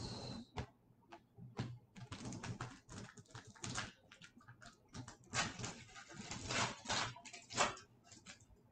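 A trading-card pack's foil wrapper being torn open and crinkled by hand, in short, irregular crackles.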